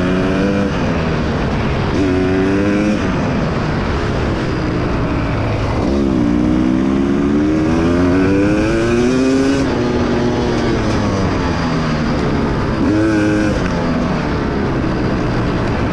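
Two-stroke dirt bike engine being ridden, its pitch climbing and dropping again and again with the throttle. The longest climb runs from about six to nine and a half seconds in.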